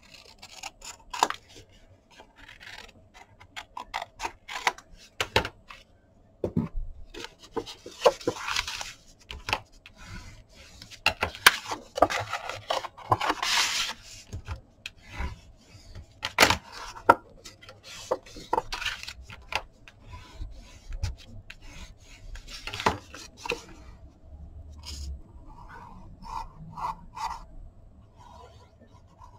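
Kraft cardstock handled by hand: folded, creased and rubbed flat, sliding and scraping over a cutting mat, with many light taps and a couple of louder rasping swishes in the first half.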